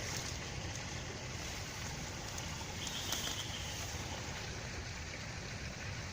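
Steady outdoor background noise, a low rumble under an even hiss, with a faint short high chirp about three seconds in.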